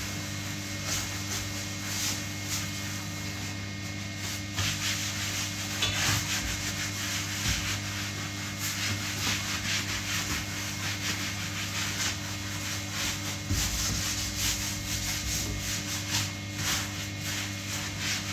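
Scrubbing a tiled bathroom floor and the base of a toilet by hand with a cleaning pad: quick, irregular rubbing strokes. A steady low hum runs underneath.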